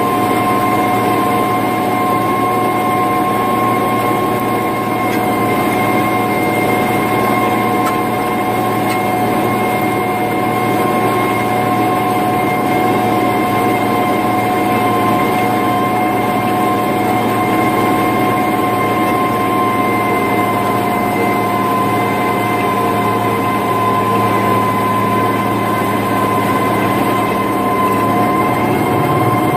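International Harvester 3588 2+2 tractor's six-cylinder diesel running steadily under load, pulling a 25-foot disc through corn stubble, with a steady high whine over the engine drone.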